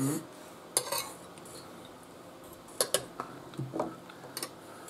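Knives and forks clinking and scraping against ceramic dinner plates while food is cut, a handful of short sharp clinks spread over a few seconds.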